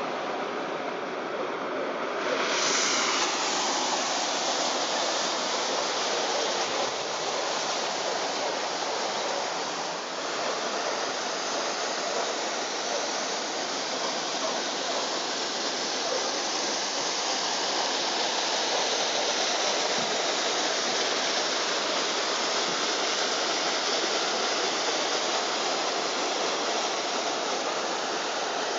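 Kawasaki Z800e's inline-four engine idling, heard close up as a steady, even rushing hiss with no clear engine note, brighter from about two seconds in.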